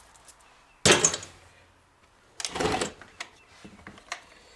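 Pioneer P25 chainsaw's recoil starter pulled twice, about a second and a half apart, turning the engine over against its compression to check it; the compression feels decent.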